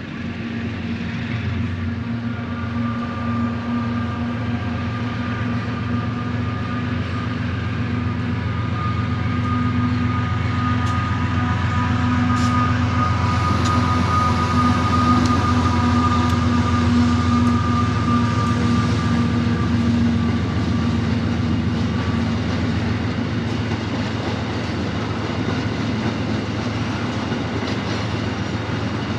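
Aurizon 2800-class diesel-electric locomotive running as it hauls a rake of acid tank wagons past, a steady low drone with a high whine over it. The sound grows louder to a peak about halfway, then eases a little as the whine fades out.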